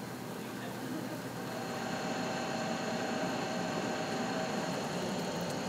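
Steady hum of popcorn-kitchen machinery: the motors of the popcorn tumblers and the stirring copper kettles running, with a few steady tones and no sharp events. It gets a little louder about two seconds in.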